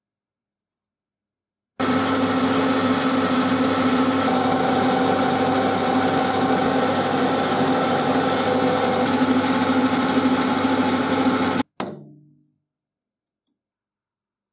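Metal lathe running and turning a brass part held in a collet: a steady machine hum with several constant tones under the cutting noise. It starts abruptly about two seconds in and stops suddenly near twelve seconds, followed by a short fading spin-down.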